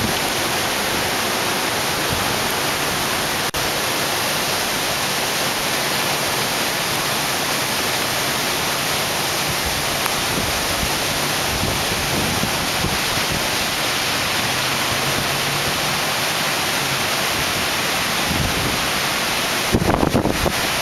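Heavy rain falling in a steady, even hiss during a rainstorm. Wind buffets the microphone near the end.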